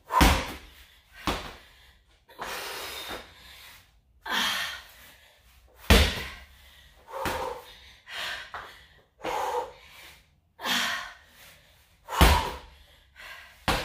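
Heavy rubber slam ball thrown down hard onto a rubber-tiled gym floor, three big thuds about six seconds apart with a smaller thud just after the first. Hard breathing and exhales fill the gaps.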